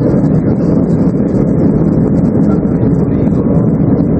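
A Boeing 737-800's CFM56-7B jet engines running at takeoff thrust during the takeoff roll, heard from inside the passenger cabin. The sound is a loud, steady low rumble of engine and runway noise.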